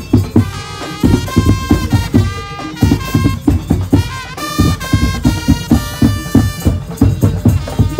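Madurese ul daul (tong-tong) band music: fast, dense drum and percussion hits under a melody of held notes.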